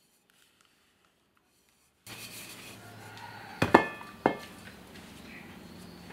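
Two sharp metallic clinks about half a second apart, the first louder, each ringing briefly, as a metal canned-oxygen can knocks against the cans standing beside it. A steady room hiss sets in abruptly about two seconds in.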